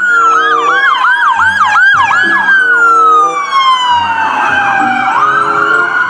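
Several police car sirens sounding at once. A slow wail holds high, falls over a few seconds and sweeps back up near the end, over a fast repeating yelp.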